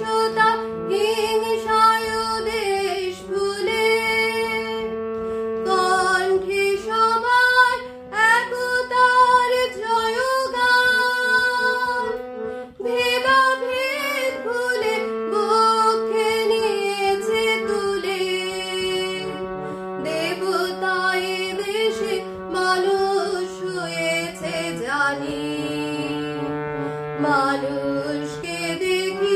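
A woman singing a Bengali patriotic song solo, accompanied by a harmonium holding long sustained notes beneath her voice.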